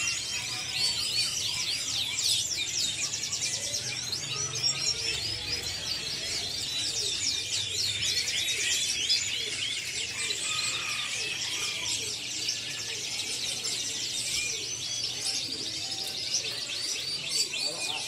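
Many caged domestic canaries singing at once, a dense, continuous mass of overlapping trills and chirps. These are males in full song (gacor).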